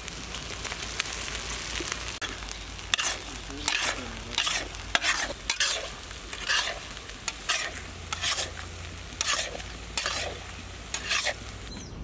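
Onion-tomato masala sizzling on a large flat tawa, with a metal spatula scraping and stirring across the pan in about a dozen short strokes from about three seconds in, working in freshly added ginger-garlic paste.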